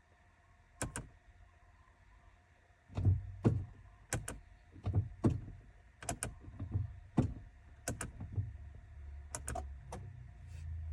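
A series of sharp clicks and knocks, roughly one every half second to a second, each with a low thud, over a low rumble that grows louder near the end.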